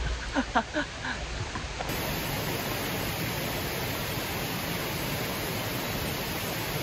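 A steady, even rushing hiss of outdoor ambience, with a few brief voice sounds in the first second; about two seconds in it changes abruptly to a fuller, unchanging hiss.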